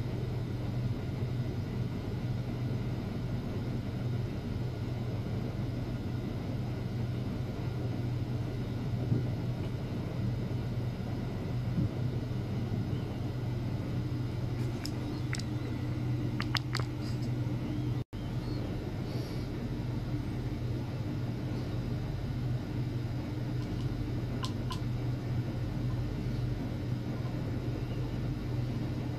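Steady low electrical hum over a rumbling background noise, with a few faint clicks about halfway through and again near the end. The sound drops out for an instant about two-thirds of the way in.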